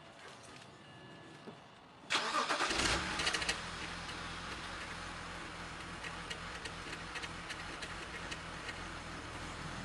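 BMW E92 328i's N52 straight-six cold-starting through the stock muffler: about two seconds in it cranks briefly and catches with a loud flare, then settles after about a second and a half into a steady idle.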